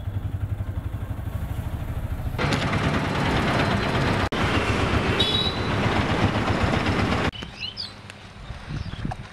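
Auto-rickshaw engine running with a fast, low throbbing pulse, heard from inside the cabin, then louder engine and road noise. About seven seconds in it drops abruptly to a quiet outdoor background with a few faint chirps.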